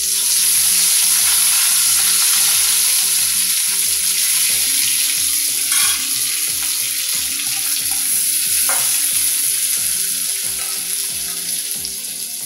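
Chopped onions, garlic, green chillies and curry leaves sizzling in hot oil in an aluminium kadai, starting the moment they go in. The sizzle is steady and eases off a little toward the end.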